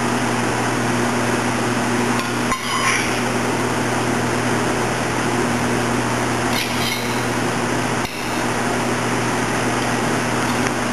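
Steady rushing background noise with a low hum, and a few light clinks of a metal spoon against a stainless steel bowl.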